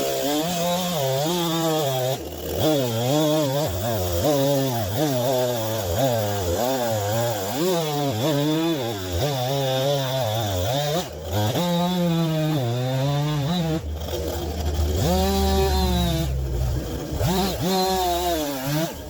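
Chainsaw running, its engine pitch rising and falling over and over as the throttle is worked.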